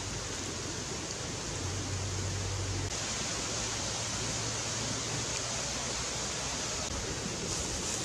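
Shrimp sizzling in oil on a hot stone, a steady frying hiss that grows sharper about three seconds in.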